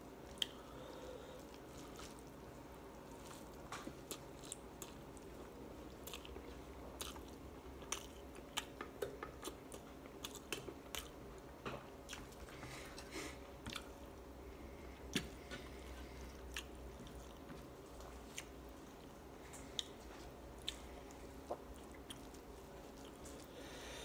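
Eating rice by hand: fingers squishing and kneading rice on a plate, with scattered sharp little clicks, and chewing.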